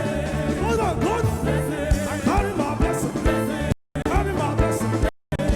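Upbeat gospel music with a full band, a steady beat and singing. The sound cuts out completely twice for a fraction of a second, about two-thirds of the way through and again near the end.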